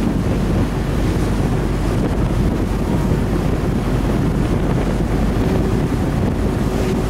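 Steady wind buffeting the microphone on the deck of a boat under way, over the rush of its wake through choppy sea.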